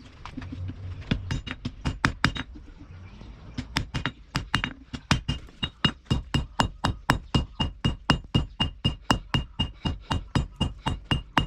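Hammer blows on steel at the anvil. Uneven strikes at first, then from about halfway a steady run of about three blows a second, each with a bright metallic ring.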